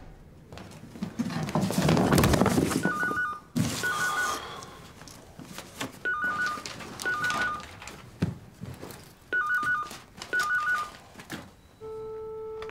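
Electronic desk telephone ringing with a warbling two-tone ring in pairs of short bursts, three double rings in all. A loud noisy stretch comes before the first ring, and a steady tone starts near the end.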